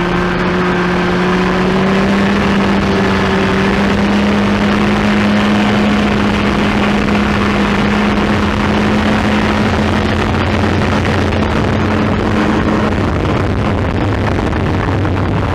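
Arctic Cat Jag snowmobile's two-stroke engine running under throttle while riding, its pitch creeping slowly up and then dropping lower near the end, over a steady rush of noise.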